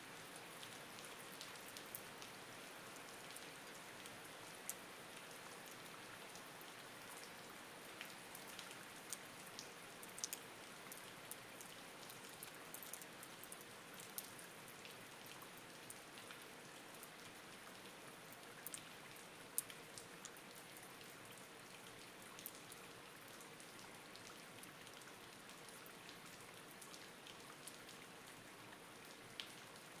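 Faint, steady rain: an even hiss with individual drops ticking sharply here and there.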